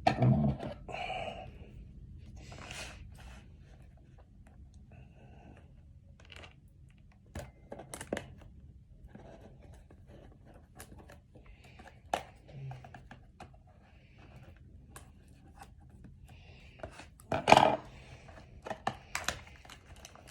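Plastic shrink-wrap being torn and peeled off a sealed trading-card box. It crinkles, with scattered handling knocks and clicks, and the loudest tearing comes at the very start and again about three-quarters of the way through.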